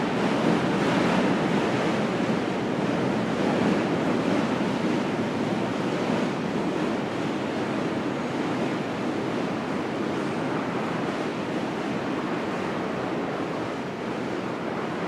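Steady rushing roar of city traffic noise that slowly gets quieter.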